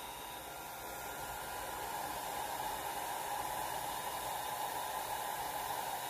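Handheld hair dryer blowing steadily, a rushing hiss that grows a little louder about two seconds in.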